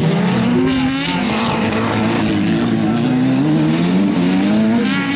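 Several superbuggy racing engines running hard at once, their pitches overlapping and repeatedly rising and falling as the buggies accelerate and shift round the dirt track.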